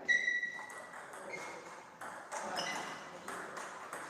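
Table tennis ball clicking against bats and tables, several quick sharp knocks, mixed with a few short high ringing tones. The loudest tone comes right at the start and dies away within a second.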